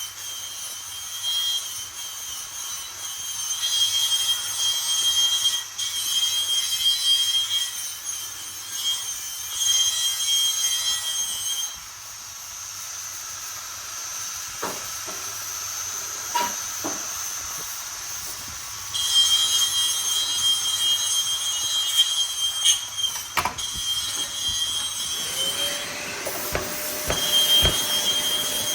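Power tool cutting or grinding at a workbench: a high, steady whine with hiss, run in spells with pauses and a few knocks between them. A lower steady hum comes in near the end.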